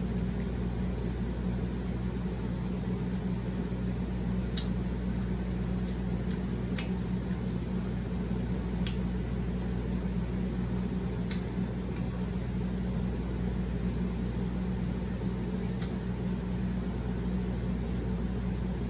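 Steady low mechanical hum of room background noise, unchanging throughout, with a few faint, sharp clicks every couple of seconds.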